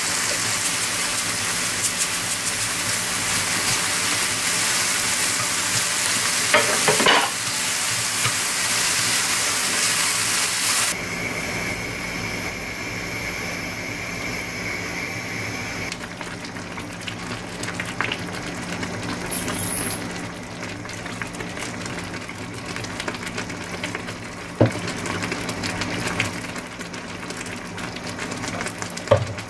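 Meat with wood-ear and beech mushrooms sizzling in a hot frying pan as they are stirred and mirin is added; the sizzle flares briefly about seven seconds in. About eleven seconds in the sizzle cuts off to a quieter stretch as water is poured over glass noodles in the pan, with a couple of light clinks near the end.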